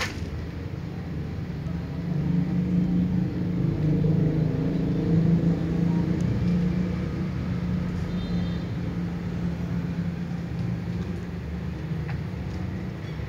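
Low engine rumble of a motor vehicle, growing louder about two seconds in and slowly fading toward the end.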